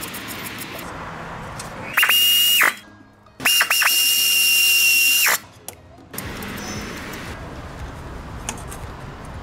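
Power ratchet spinning nuts down onto the muffler flange studs: two runs of a steady high whine with a hiss, a short one about two seconds in and a longer one from about three and a half seconds, each starting and stopping abruptly.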